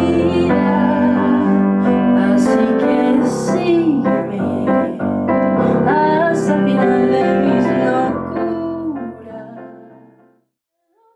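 Piano music with a woman's singing voice, fading out near the end to a brief silence.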